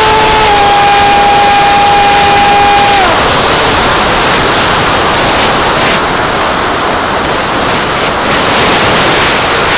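Motor of the Mega 22/40 1EE with a high steady whine over a loud, even rushing noise. The whine slides down in pitch and fades out about three seconds in, leaving only the rushing. This is the strange noise the owner is asking about.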